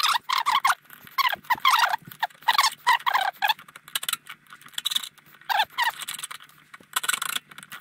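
Hand metal file scraping back and forth over the mushroomed end of a seized steel shear pin in a kayak drive's prop shaft, a quick run of squeaky rasping strokes. It pauses about halfway, then turns to a faster, hissier scraping near the end.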